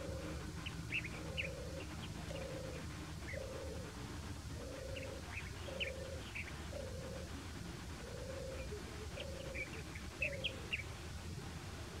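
European turtle dove singing its purring song: a low 'turr' note repeated a little more than once a second, which stops near the end. Short high chirps of other small birds sound over it.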